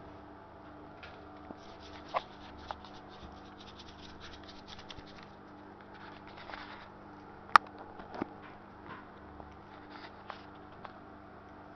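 Close handling noise: light rustling and scratching with scattered sharp clicks, the loudest about seven and a half seconds in, over a faint steady hum.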